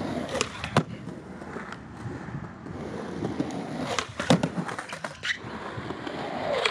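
Skateboard wheels rolling on smooth concrete, with two sharp clacks within the first second. About four seconds in, the tail cracks as the board is popped for a fakie ollie, then the board clacks down on landing and rolls on.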